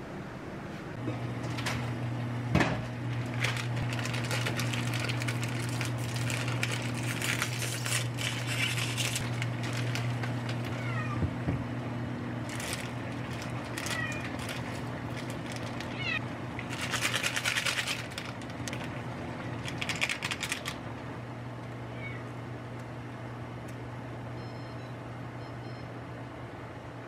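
A house cat meowing a few short, rising times over a steady low hum, with the crackle of instant-noodle packets being handled.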